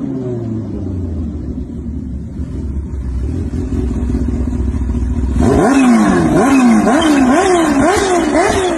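Kawasaki Ninja H2R's supercharged four-cylinder engine: its note falls in pitch and settles into a low, steady run. About five and a half seconds in it is revved hard in quick throttle blips, roughly two a second, each rising sharply and falling back.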